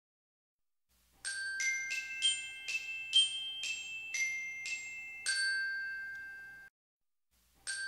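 Short intro jingle played on glockenspiel: a bright melody of about ten struck, ringing notes, roughly two to three a second, starting about a second in. The last note is held and fades, then cuts off suddenly, and the tune starts again near the end.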